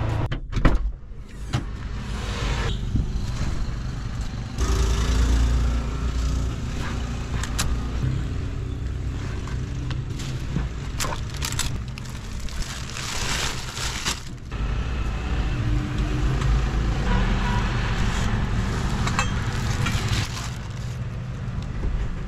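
Vehicle noise: a car's engine and tyre rumble on a concrete road, then roadside traffic with the rustle and knocks of plastic-wrapped bundles of clothes being loaded into the car's rear cargo area.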